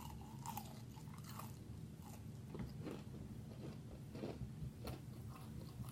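A person chewing and biting food close to the microphone, with a few soft crunches and mouth clicks scattered irregularly through.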